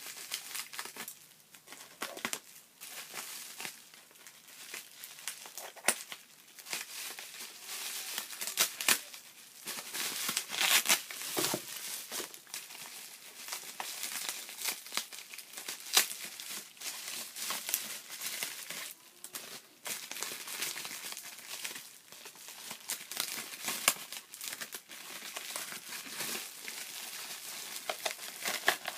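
Packing wrap crinkling and crumpling in irregular bursts as it is pulled off and handled during unpacking, with a few sharper tearing or rustling sounds.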